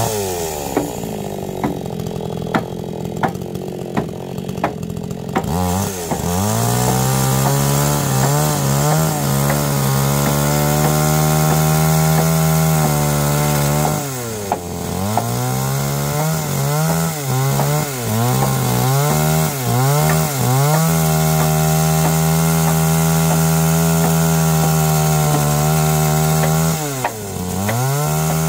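Two-stroke chainsaw running low for about the first five seconds, with sharp knocks about twice a second over it. It then revs to full throttle and is held there cutting into a timber beam. It eases off briefly twice and is blipped up and down for a few seconds in between.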